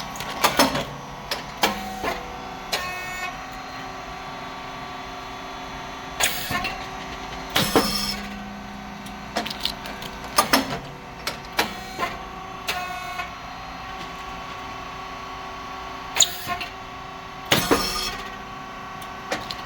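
Rice cake popping machine (SYP5804T) running its cycle: a steady motor-and-pump hum, broken at irregular intervals by sharp pops and short hissing bursts as the heated moulds open and the rice chips puff.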